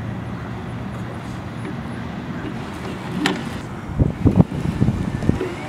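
Steady outdoor background rumble of wind and distant traffic on the camera microphone, with a sharp click a little past the middle and a few low thumps soon after.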